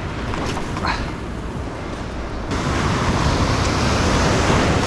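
Ocean surf washing over shoreline boulders, swelling louder about halfway through as a wave comes in and breaks into white water around the rocks.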